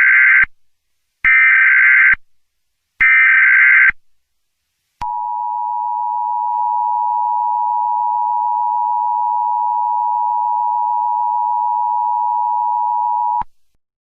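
Emergency Alert System SAME header: short bursts of digital data noise, three in all and each under a second. About a second later comes the EAS attention signal, a steady two-tone beep held about eight seconds and cut off abruptly.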